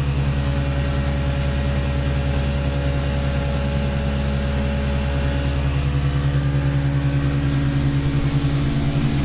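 Small fibreglass runabout's motor running steadily underway: a low, evenly pulsing drone.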